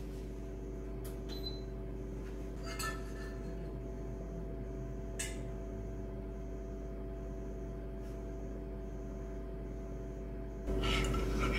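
Steady low hum of a running household appliance, with a faint high tone pulsing about once a second and a few light clicks; the hum gets louder near the end.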